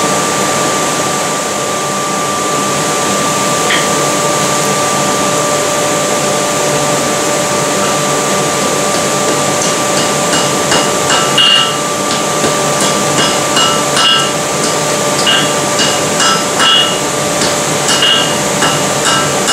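A forge's air blower runs with a steady hum and hiss. About ten seconds in, hand-hammer blows on glowing steel over an anvil begin, about two a second, each with a short metallic ring: the two heated pieces are being hammered together into a forge weld.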